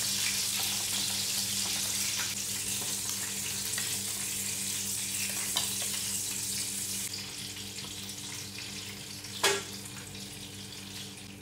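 Tuna frying in hot cooking oil, a steady sizzle that slowly dies down once the fish is cooked through. A single sharp knock about nine and a half seconds in.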